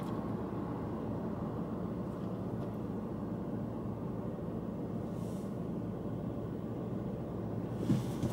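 Steady low cabin noise of a stationary car with its air conditioning running, and a brief soft sound near the end.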